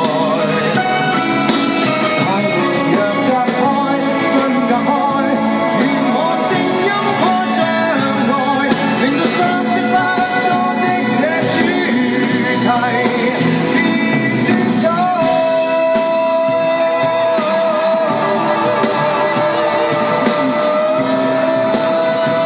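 A male singer singing a pop song live over a full band, amplified through the concert sound system. About 15 seconds in, a long note is held for several seconds.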